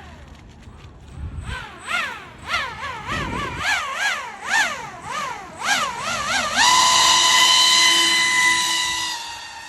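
Pro Boat AeroTrooper RC airboat's brushless electric motor and fan whining, the pitch rising and falling quickly many times as the throttle is blipped, then held high and steady for a couple of seconds before dropping away near the end.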